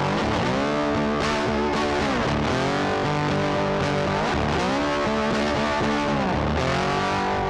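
Background music led by a guitar, playing long held notes that bend up and down in pitch.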